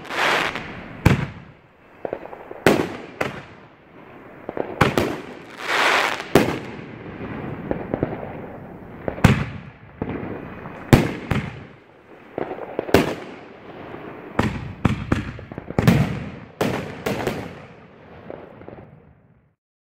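Five-inch canister fireworks shells going off overhead: a run of loud, sharp booms, more than a dozen, with swells of hiss between some of them, stopping just before the end.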